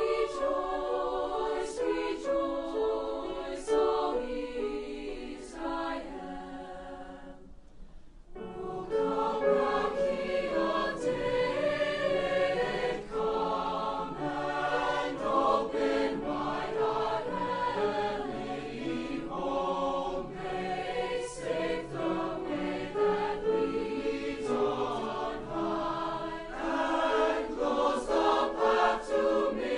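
A student choir singing a holiday piece in several parts; the singing fades away about seven seconds in and starts again about a second later.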